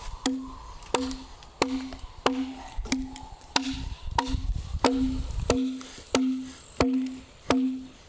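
A mallet striking a chisel into wood in a steady rhythm, about three blows every two seconds. Each blow is a sharp knock with a short, low, hollow ring.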